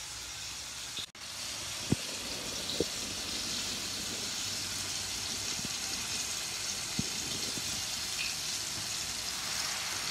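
Pancit noodles and vegetables sizzling steadily in a wok as they finish cooking, with a few sharp knocks of wooden spatulas against the pan.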